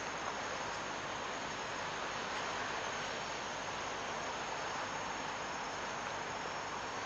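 Steady chorus of crickets and other insects.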